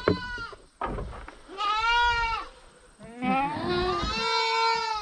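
Goats bleating: a call trailing off at the start, then two long, wavering bleats, the second running into the end.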